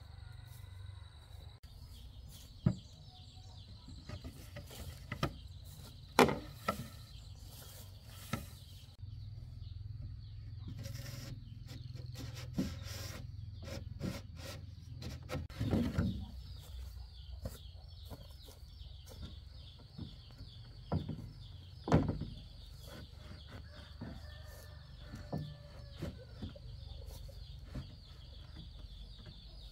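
Scattered sharp knocks and taps, a few of them loud, over a steady high-pitched whine. Chickens cluck now and then in the background.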